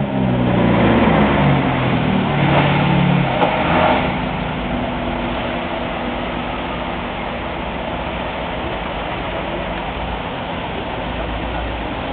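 Classic Mercedes-Benz 190 SL roadsters' four-cylinder engines, driving past slowly. The first car's engine is loud for about four seconds, its note shifting up and down. It then gives way to a quieter, steady engine note as the next car pulls out and passes.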